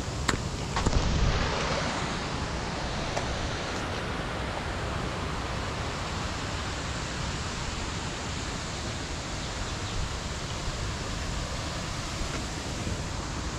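Steady rushing noise on a small camera's microphone, from outdoor air and distant creek water, with a few sharp knocks and a rubbing swell in the first second or so as the drone camera is picked up and handled.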